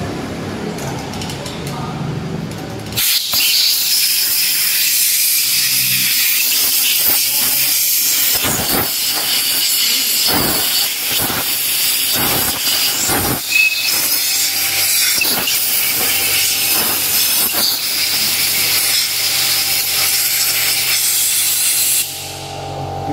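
Loud, steady hiss of a pressurised jet, starting about three seconds in and cutting off suddenly shortly before the end, with a few short sputters in the middle.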